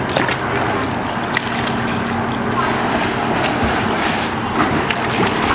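Swimming-pool water splashing and sloshing as a child wades and paddles her arms near the pool steps, a steady noisy wash with scattered small splashes.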